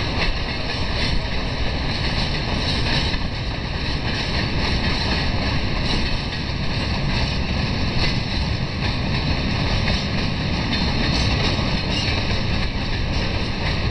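Steady rolling noise of a long freight train of empty tank wagons running past on the rails, with wind buffeting the microphone.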